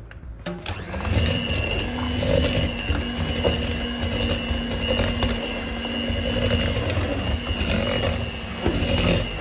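Ariete Mixy 210 electric hand mixer starting up within the first second, then running steadily with a motor whine as its beaters work through thick cake batter.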